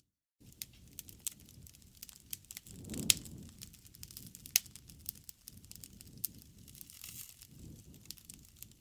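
Wood fire crackling, with irregular sharp pops and snaps over a low rumble of flames that swells twice, after a brief dropout at the very start.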